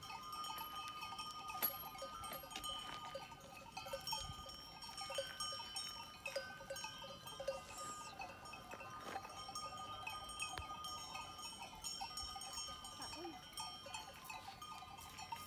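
Bells on a flock of sheep and goats ringing and clanking irregularly as the animals walk, several bells at once, faint and steady.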